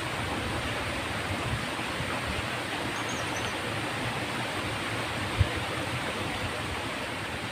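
Stream water rushing steadily over a low concrete weir, with a single dull thump about five seconds in.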